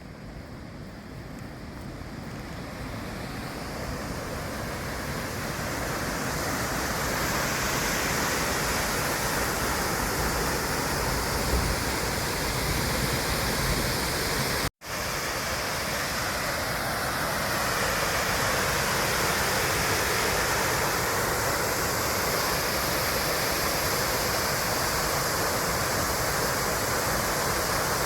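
Steady rush of falling water from a waterfall, growing louder over the first few seconds and then holding even, with an instant's break about halfway through.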